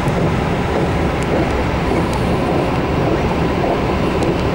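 Steady rumble and rush of a passenger train running at speed, heard from inside the carriage, with a few faint high ticks.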